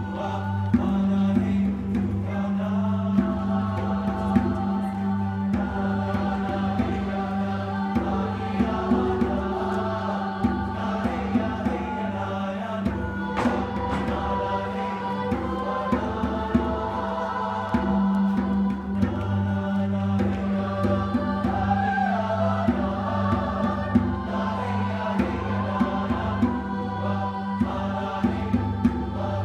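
Mixed choir singing a chant-like melody in harmony over a steady low drone and a regular drum beat.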